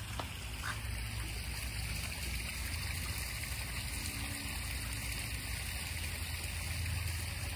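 Steady rush of running water from a backyard koi pond.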